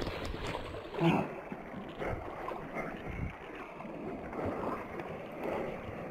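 Swollen, fast creek water rushing and splashing against a person wading through it chest-deep, with a louder surge about a second in.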